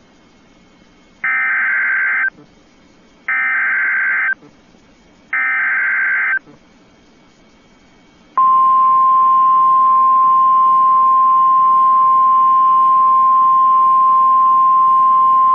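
Emergency Alert System SAME header: three identical buzzing digital data bursts, each about a second long and two seconds apart, encoding a Flash Flood Warning. About eight seconds in, the steady single-pitch weather alert tone, around 1050 Hz, starts and holds.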